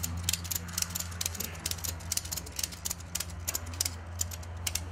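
Ratchet strap on a pole tent's side-pole pull being cranked by hand, its pawl clicking at about three or four clicks a second, often in quick pairs, as the strap is tightened to pull the pole vertical.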